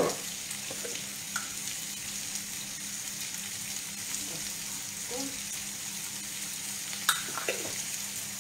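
Zucchini and salmon sizzling steadily as they brown in a frying pan, with a couple of light clicks about seven seconds in.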